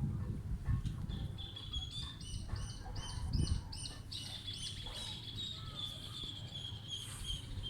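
A small bird singing: a quick run of high, arching notes, then a long high trill held almost to the end. A low rumble runs underneath.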